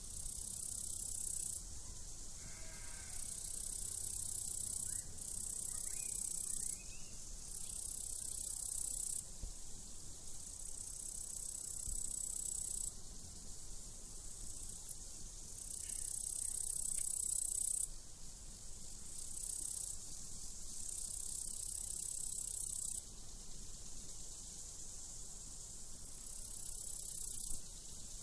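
Crickets trilling in high-pitched pulses a second or two long, with a sheep bleating briefly about two and a half seconds in.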